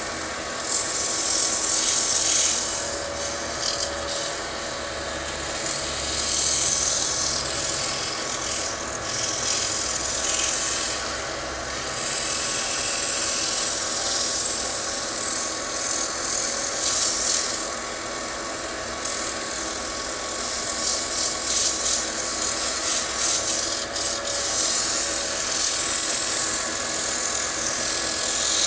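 Wood lathe running with a steady hum while sandpaper is pressed against the spinning wooden bowl. The hiss of the abrasion swells and fades every few seconds as the pressure and position change.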